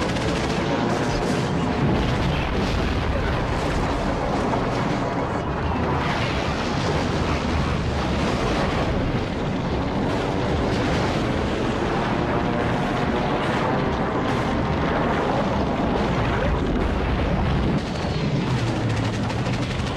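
Continuous rumbling soundtrack of battle sound effects, booms and gunfire, mixed with music.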